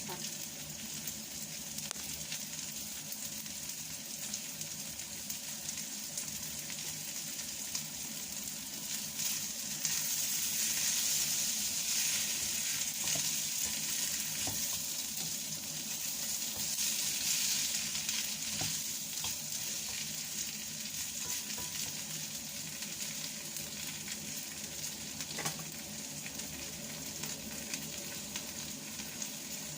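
Fried noodles (mie goreng Jawa) with vegetables sizzling in a hot pan as they are stir-fried, a steady frying hiss that swells louder for several seconds in the middle, with a few light clicks.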